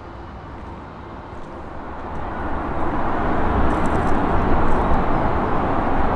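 Steady rumble of road traffic, growing louder about two seconds in and then holding.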